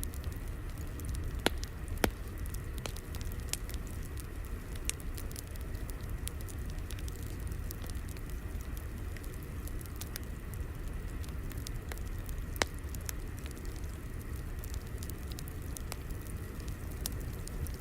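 Wood fire crackling: a low steady rumble with scattered sharp pops, three of them louder, two near the start and one about two-thirds of the way through.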